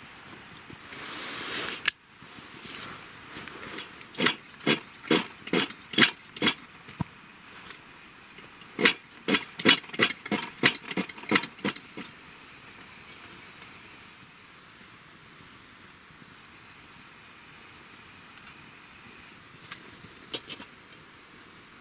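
Pressure lantern being pumped by hand: a sharp click, then two runs of quick, sharp strokes about three a second with a short pause between them. After that, only a faint steady hiss.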